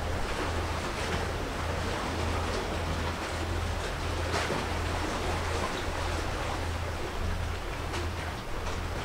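Sea water washing and surging with wind, a steady low hum underneath.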